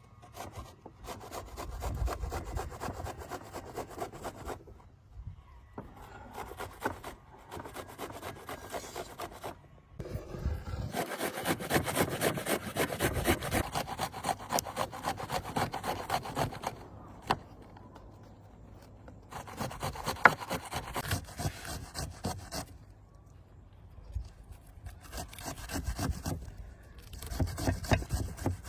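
Food being grated by hand on a metal grater: quick, repeated rasping strokes in runs of several seconds, broken by a few short pauses.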